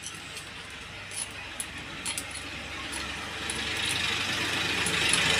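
A few light metallic clicks as the cam sprocket and timing chain of a Hero Honda 100 cc engine are handled while setting the valve timing. Underneath is a rushing noise that grows louder through the second half.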